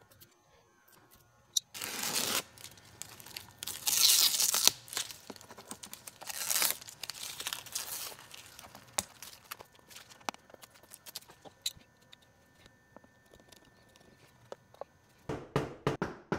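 Adhesive vinyl masking film being peeled off a painted, carved wooden sign: several long ripping pulls in the first half, with small crinkles and ticks between them. A quick run of taps starts near the end.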